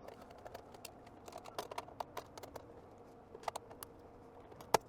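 Scattered light clicks and taps of small tools and metal parts being handled while a radio chassis is being dismantled, with one sharper click near the end. A faint steady hum runs underneath.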